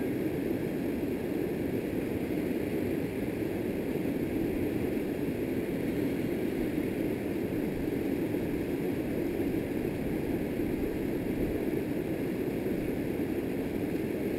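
Steady rushing of river water pouring down a smooth granite rock slide into a pool, an even, unbroken noise that stays at the same level throughout.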